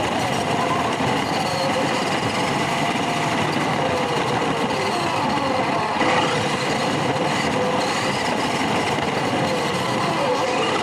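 Small electric motor and gears of a toy RC pickup truck whining as it drives, the pitch rising and falling as its speed changes.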